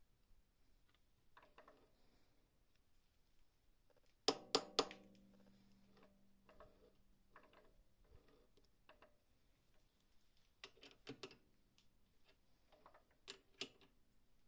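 Metal clicks and knocks from a mini metal lathe's chuck and chuck key being handled, with three quick sharp knocks about four seconds in that leave the metal ringing briefly, and more small clicks near the end.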